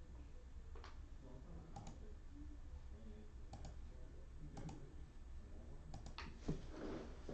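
Faint scattered clicks of trading cards and cellophane pack wrappers being handled, with a louder tap about six and a half seconds in and a rustling crinkle starting near the end.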